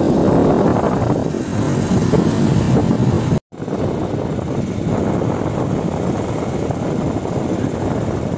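Wind rushing over a phone's microphone on a moving motorcycle, a dense steady rumble mixed with the bike's running and road noise. The sound cuts out completely for a moment about three and a half seconds in, then resumes.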